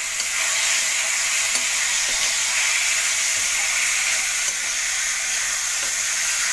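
Potatoes, onion and freshly added ground spices sizzling steadily in hot oil in a kadai while being stirred with a spatula, which scrapes the pan a few times. This is the stage of frying the spice masala in oil (kashano).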